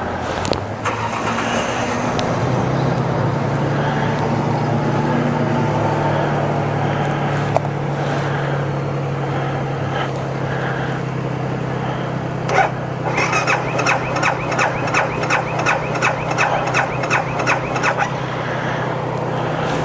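A 2012 BMW G 650 GS Sertão motorcycle's motor runs with a steady low drone during a hard-start episode on a bike with a recurring starting fault. About two-thirds of the way in, a rapid ticking of about four clicks a second starts over the drone and stops shortly before the end.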